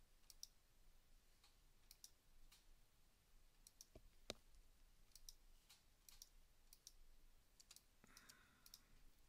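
Faint computer mouse clicks, scattered irregularly over near silence, with one sharper click a little past four seconds in.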